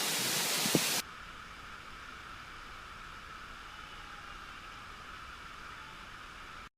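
Waterfall rushing loudly for about the first second, with a single click just before it stops. It cuts abruptly to a much quieter steady hiss, which ends in dead silence just before the end.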